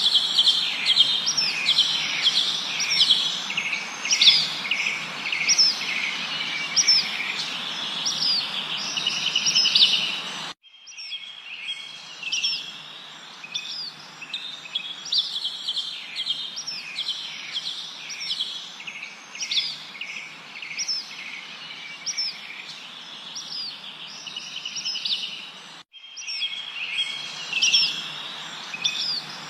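Birds chirping and singing together over a steady background hiss, with quick rising whistled notes repeating about once a second. The sound cuts off abruptly and restarts twice, about ten seconds in and near the end.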